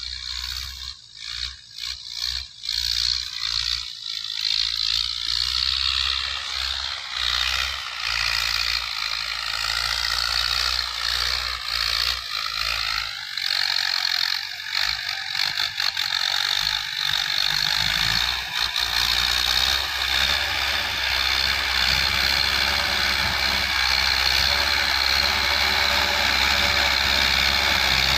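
Massey Ferguson 185 tractor's four-cylinder diesel engine running with a rattling, mechanical clatter, growing steadily louder as the tractor drives closer. A few sharp knocks sound in the first seconds.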